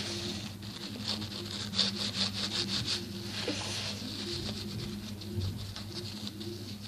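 Paintbrush brushing and dabbing paint onto a homemade squishy: quick scratchy strokes, several a second, coming in runs, over a low steady hum.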